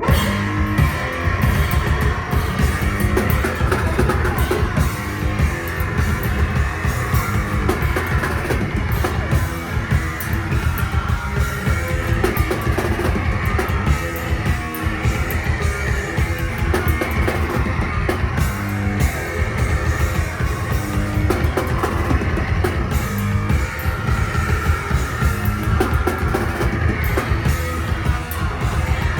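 A noise-rock duo playing live, loud: a heavily distorted bass guitar and fast, dense drum-kit playing, kicking in abruptly at the start.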